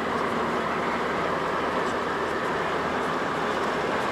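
Steady road noise inside a moving car's cabin: tyres and engine running at an even pace.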